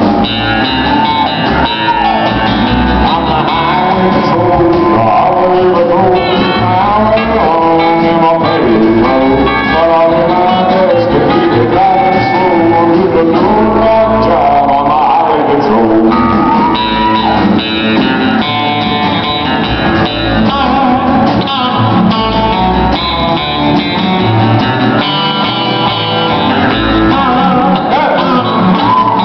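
Live country music on a guit-steel, a double-neck electric guitar and lap steel guitar, with slide notes gliding up and down in pitch over a steady low end.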